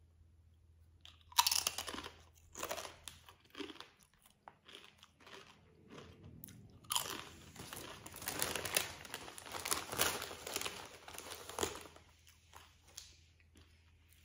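A ridged oven-baked potato chip bitten and chewed: a sharp crunch about a second and a half in, then crisp crunching chews, thickest in the middle and thinning out near the end.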